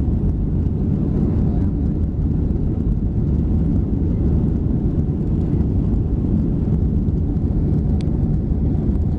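Steady low rumble of a Boeing 737-800's CFM56-7B jet engines heard from a distance, even in level throughout.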